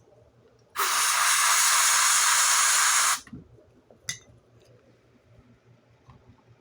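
Aerosol spray can hissing in one steady burst of about two and a half seconds that cuts off sharply, typical of canned smoke-detector test spray aimed at a detector. A short click follows about a second later.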